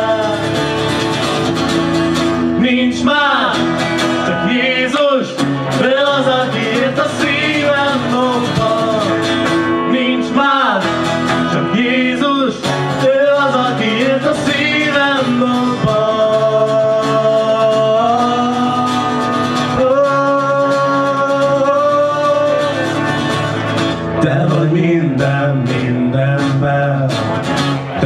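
A live band playing a worship song: strummed acoustic and electric guitars carrying along under a lead melody with bending, wavering notes and a few long held notes.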